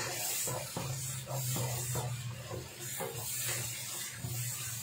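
Wooden spatula stirring and scraping thick chilli sambal around a wok in irregular strokes, with the paste sizzling in its oil; the oil separating out is the sign the sambal is well cooked. A steady low hum runs underneath.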